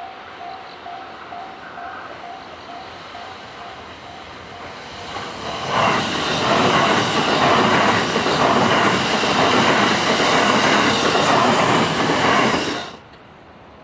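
A Japanese level-crossing warning bell dings over and over. About five and a half seconds in, a JR West electric commuter train passes close by, loud with the noise of its wheels running over the rails, for about seven seconds. The sound cuts off suddenly near the end.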